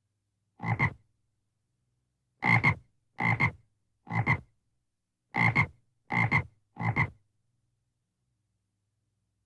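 A frog croaking seven times in short calls, each about half a second long: one call, a pause of about a second and a half, then two quick groups of three.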